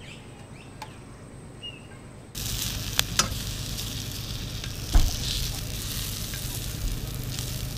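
Onion rings frying in melted butter in a frying pan. After a quiet start there is a steady sizzle from about two seconds in, with a few sharp knocks of metal tongs against the pan, the loudest about five seconds in.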